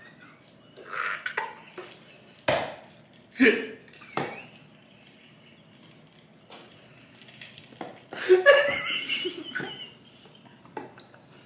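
Two people laughing in bursts, loudest about eight seconds in, with two sharp knocks a few seconds in as cups are set down on the table.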